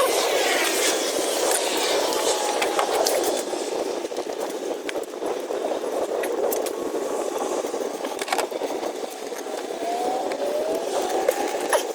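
A steady rushing background noise, with a few scattered clicks and knocks of a wrench on metal as the starter bolts are worked on.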